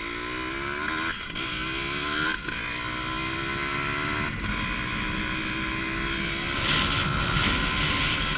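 A 100cc two-stroke dirt bike engine accelerating through the gears. Its pitch climbs and drops back at upshifts about one, two and a half and four seconds in, then it runs along steadily. Wind rushes over the microphone, growing louder near the end.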